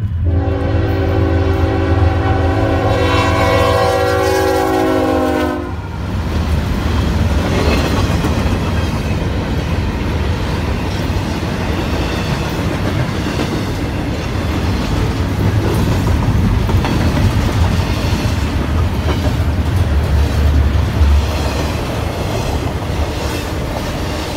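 Freight locomotive horn sounds one long multi-note chord for about five seconds, dipping slightly in pitch near its end as it passes. Then the train's double-stack container cars rumble and clatter steadily by on the rails.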